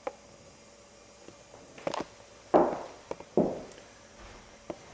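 Footsteps: a handful of uneven steps, the two loudest about two and a half and three and a half seconds in.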